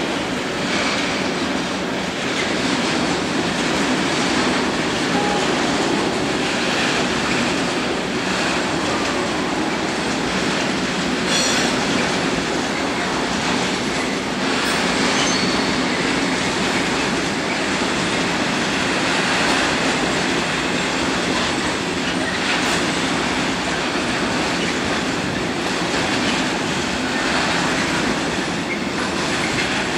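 Train running past on the rails: a continuous, steady rush of wheel and track noise with a faint low hum underneath, lasting throughout.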